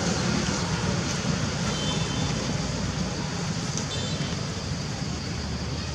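Steady low rumble and hiss of outdoor background noise, with a few faint, brief high chirps about two and four seconds in.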